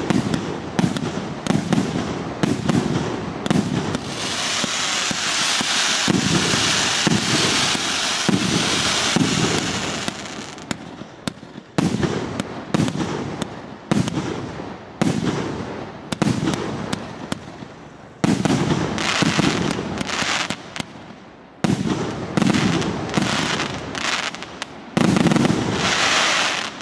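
A 1.5-inch, 81-shot consumer firework cake firing in rapid succession: a string of launch thumps and aerial bursts about two a second, with a long dense hiss from about four to ten seconds in.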